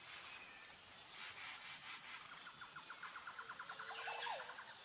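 Faint outdoor nature ambience: a bird gives a rapid trill of short notes about two seconds in, then a short warbling call, over a thin steady high insect-like tone.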